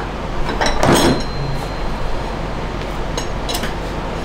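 Metal tools clinking and clattering as puller parts are handled and fitted, with a few sharp clinks about a second in and a couple more near the end.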